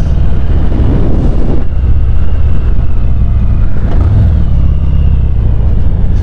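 Harley-Davidson V-twin engine with an aftermarket exhaust, running steadily as the motorcycle is ridden, a deep continuous rumble with a brief rush of noise about a second in.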